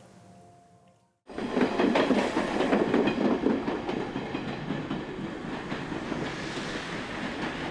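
An Echizen Railway local train running on the rails, its wheels clattering and rumbling. It starts abruptly after a brief silence about a second in, is loudest just after it starts, then settles to a steadier run.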